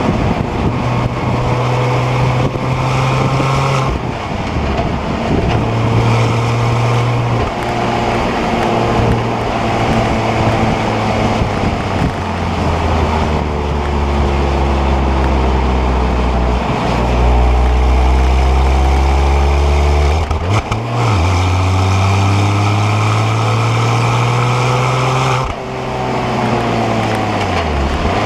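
Porsche Cayman 987 2.9-litre flat-six engine driven hard on track, its revs climbing and falling repeatedly. There are abrupt breaks in pitch where gears change, and a long stretch of falling revs with deep rumble in the middle, as under braking, before it pulls up again.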